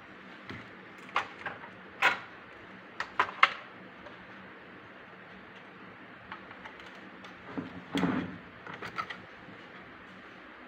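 Handling noise from toy tractor and harvester models: scattered sharp clicks and knocks, with a heavier rustling thump and a few more clicks about eight seconds in.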